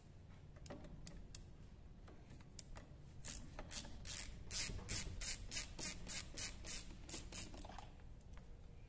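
Phillips screwdriver backing out the screw that holds a plastic air filter cover: a faint run of short, evenly spaced scraping strokes, about four or five a second, starting about three seconds in and stopping near the end, with a few light ticks before.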